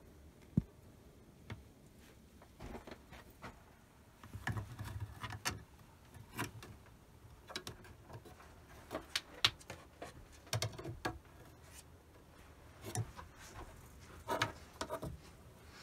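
Scattered light taps, knocks and rustles on wood, spread irregularly, with a few sharper clicks such as one about half a second in and another near the middle.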